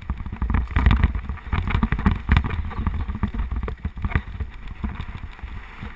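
Mountain bike running fast down a rough dirt trail: wind rushing over the microphone, with the bike rattling and knocking sharply over bumps many times.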